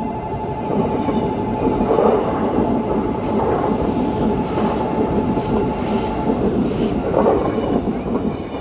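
KTX-EUM electric train passing over a level crossing, its wheels and carriages making a loud rumble and clatter, with high wheel squeals in several pulses in the middle. The crossing's warning bell sounds steadily under it and stops about six and a half seconds in.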